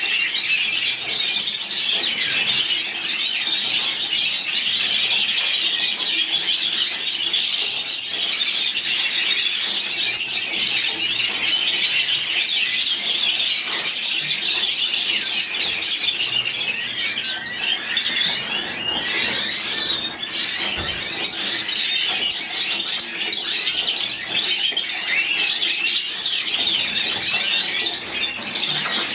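White canaries singing: a continuous, rapid warbling and trilling song with no pause.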